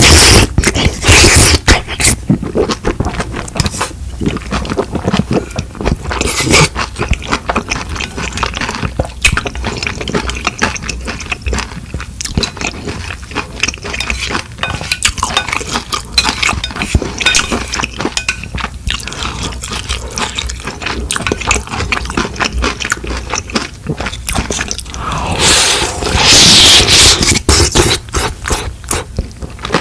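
Close-miked eating sounds: chewing with many small wet mouth clicks. Two longer, louder slurps, likely of noodles, come at the start and near the end.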